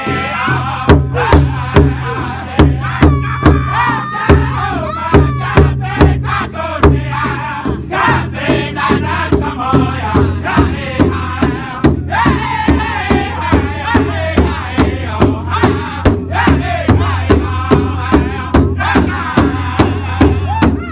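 Powwow drum group singing an intertribal song: several men's voices in unison over a large shared drum struck together with sticks in a steady beat of about two strikes a second.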